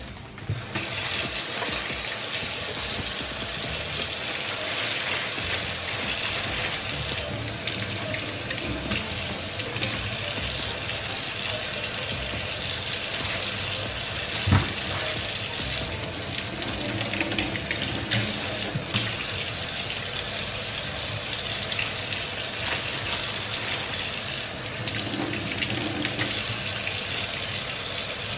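Water running steadily from a kitchen tap into a stainless steel sink, turned on about half a second in. One sharp knock sounds about halfway through.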